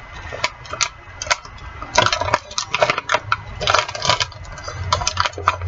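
Rummaging through a kitchen drawer: metal utensils clattering and clinking in quick, irregular knocks.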